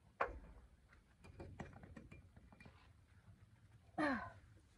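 Faint handling noise of a magnet-fishing rope and magnet being hauled up over a bridge railing: a sharp click, then scattered small knocks and scrapes. About four seconds in a woman gives a short voiced 'ohh' that falls in pitch.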